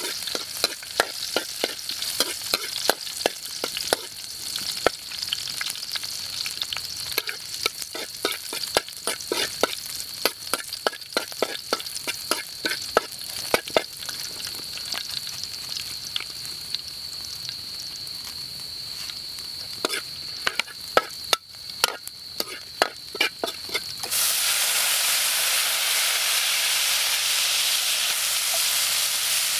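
A metal spatula scrapes and clicks rapidly against a wok as chopped garlic and chilli fry in oil with a light sizzle. Near the end, chopped raw meat is tipped into the hot oil and a louder, steady sizzle suddenly takes over.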